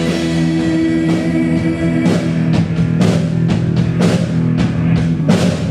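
Rock band playing: held guitar and bass notes over a drum kit, with regular drum hits from about two seconds in.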